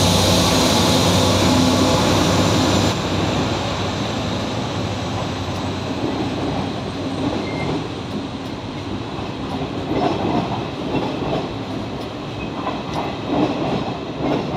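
A Trenitalia D.445 diesel locomotive runs past with its engine loud for about the first three seconds. Then passenger coaches roll by with a quieter rumble and scattered clacks of wheels over the rail joints and points.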